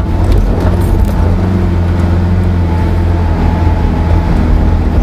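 Four-wheel-drive vehicle's engine running under load as it climbs a soft sand dune track, heard from inside the cabin as a steady low drone with a few small knocks.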